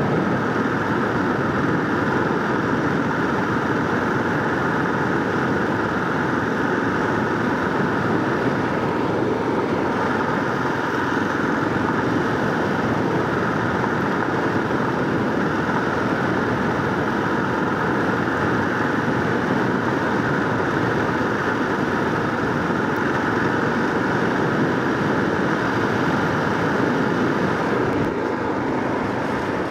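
Kawasaki KLR650 single-cylinder motorcycle engine running steadily under way, mixed with wind noise.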